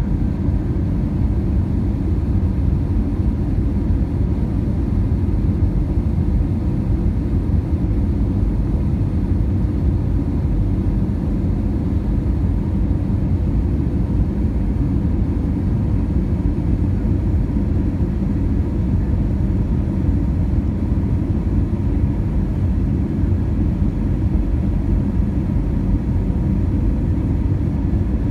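Steady cabin noise of an Airbus A320 on final approach, heard from a window seat beside the engine: a deep, even rumble of engine and rushing air with faint steady tones held above it.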